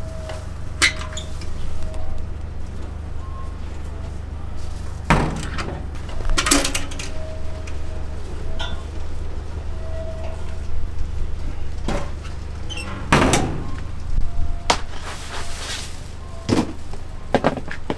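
Knocks and clatters of pizza-making work in a food-truck kitchen, about ten separate impacts, over a steady low hum. A brief hiss comes a little past the middle.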